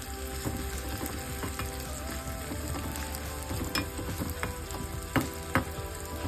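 Shallots, dry red chillies and chili powder sizzling in hot oil in a small aluminium pan while the seasoning for a prawn curry is being fried. A metal spoon stirs and scrapes through it, clinking sharply against the pan three times in the second half.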